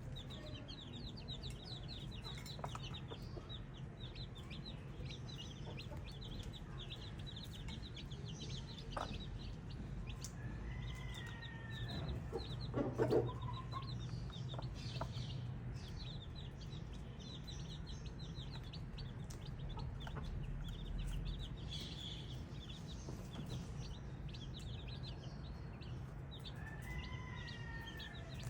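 Baby chicks peeping constantly, many short high chirps overlapping. A few louder, lower calls stand out, the loudest about halfway through, over a steady low hum.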